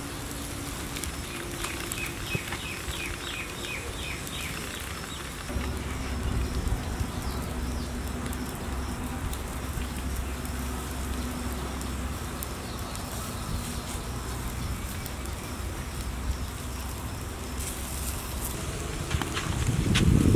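Outdoor ambience: a bird gives a quick run of high chirps about two seconds in, over a steady crackling hiss. A low steady rumble comes in about five seconds in.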